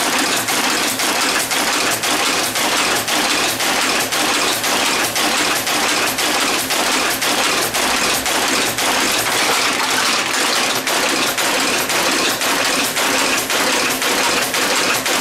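Monotype composition caster casting type from molten type metal, a steady mechanical clatter of about three strokes a second.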